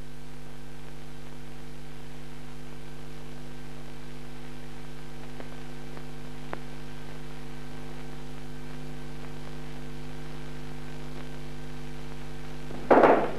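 Steady mains hum with faint hiss on an old film soundtrack, a few unchanging low tones held throughout. A louder noise breaks in just before the end.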